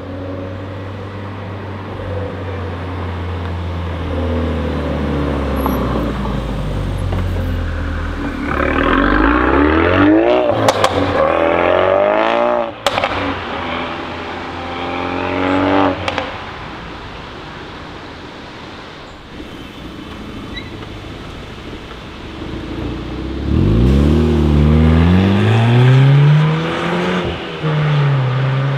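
A modified Ford Focus RS MK3's turbocharged 2.3 EcoBoost four-cylinder idles, then accelerates hard, its revs rising through a gear change with several sharp exhaust cracks. It fades away, and near the end a second car, a Ford Fiesta ST, revs up and accelerates.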